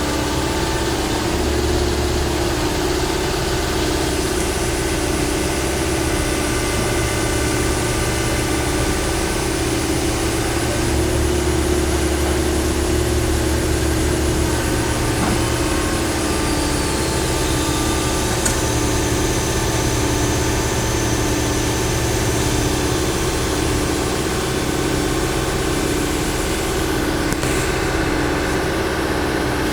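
The diesel engine of a Hitachi 138 excavator runs steadily. Its low rumble swells twice and eases back as the machine works.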